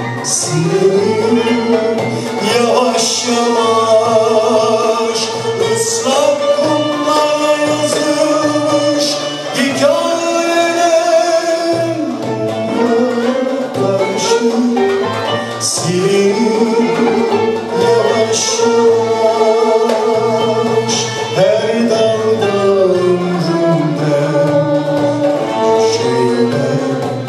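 Live Turkish art music: an instrumental ensemble with violins plays a slow melody of long, wavering notes and gliding phrases, with a male solo voice singing.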